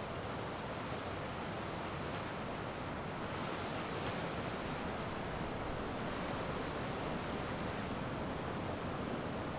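Sea surf breaking and washing onto a rocky shore, a steady rushing with some wind.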